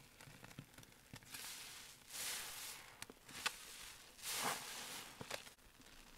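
Soap-soaked sponges squeezed by hand in thick dish-soap suds: several wet squelches with hissing, crackling foam and a few sharp clicks, loudest a little over a second in, around two seconds in, and again past four seconds.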